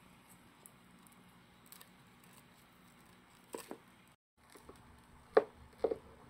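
A few soft taps and clicks of a Reeves' turtle's claws and shell against a wooden floor as it walks: a pair of faint taps partway through, a moment of dead silence, then two louder knocks near the end.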